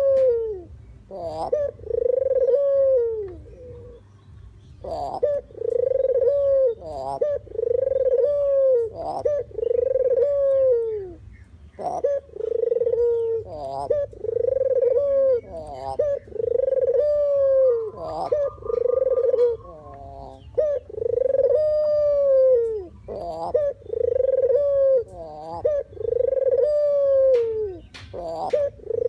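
Puter (collared dove) cooing over and over, each coo rising and falling in pitch, about one a second, with a short pause a few seconds in.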